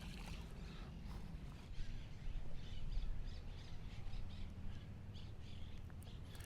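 Birds calling outdoors: a quick series of short, high calls through the middle, over a low steady rumble.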